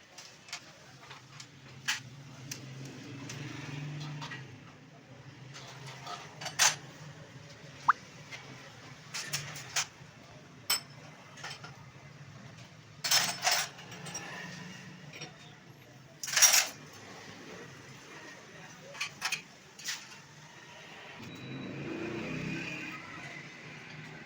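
Small metal parts and hand tools clinking and tapping against each other at irregular intervals during work on a diesel injection pump, the loudest knocks about 13 and 16 seconds in, over a faint low hum.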